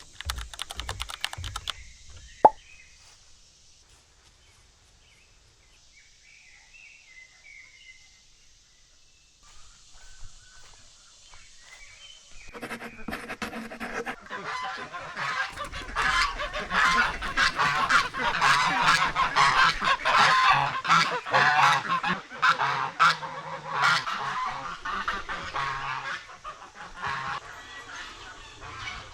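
A flock of domestic waterfowl calling. For the first dozen seconds it is fairly quiet, with one sharp knock about two and a half seconds in and faint bird chirps. Then many loud, overlapping calls start up, grow into a continuous din and ease near the end.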